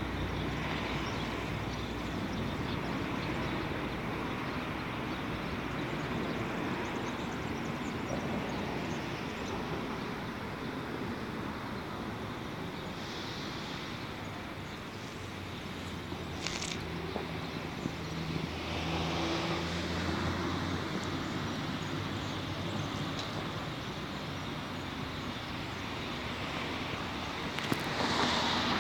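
Steady city road traffic noise, swelling a little now and then as vehicles pass.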